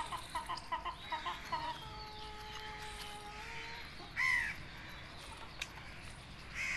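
Chickens calling while they feed: a run of quick short clucks, then one long level call, and about four seconds in a single loud, harsh squawk, with a few light clicks in between.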